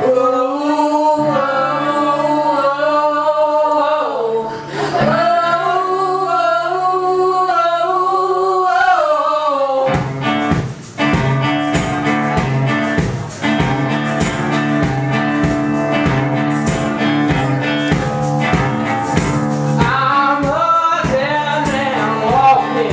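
Live band music: singers over acoustic guitar and held bass notes. About ten seconds in, a steady drum beat of about two strokes a second comes in and the singing drops out, returning near the end.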